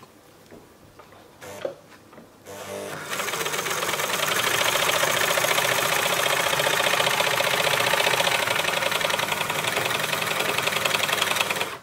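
Elna L4 domestic overlocker (serger) motor starting about two and a half seconds in, quickly running up to a fast, steady stitching rhythm and stopping just before the end.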